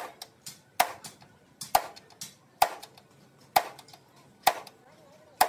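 Hammer blows on metal in a steady rhythm, about one a second, each ringing briefly and most followed by a lighter second tap.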